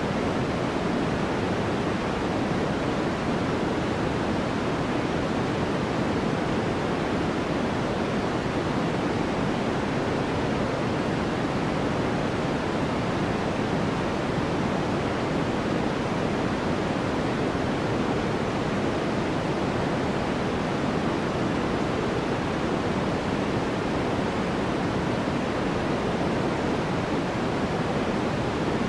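Steady white noise of the kind played for sleep: an even, unbroken hiss that never changes, fuller in the low-middle range and thinning out toward the top.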